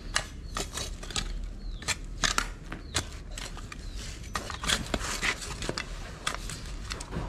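Irregular crunching and scraping strikes of a digging tool cutting into soil and roots around the buried well pipe, several a second with uneven gaps.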